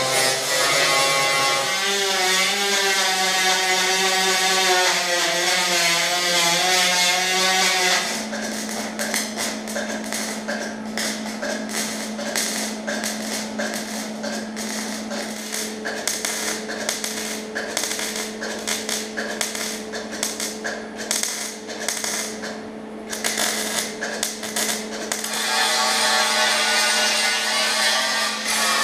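An angle grinder runs against the steel of a 1974 Nova's new quarter panel, smoothing the welds. About 8 s in, a MIG welder takes over, crackling irregularly in stop-start runs as the last spots along the panel are welded up. Near the end the grinder runs again.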